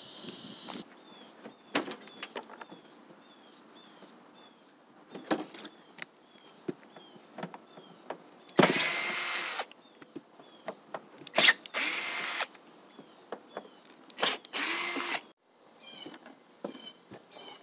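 Cordless drill running in three short spurts of about a second each as it backs out the screws of an RV rooftop air conditioner's shroud, with a few sharp clicks between them. Under it runs a steady high insect buzz with faint repeated chirping.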